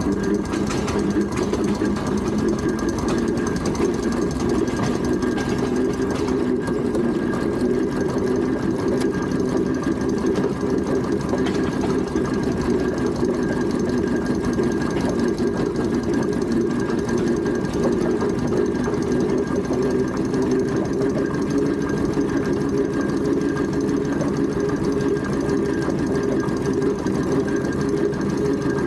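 Steam traction engine under way, running steadily with an even mechanical sound and a faint steady high tone over it.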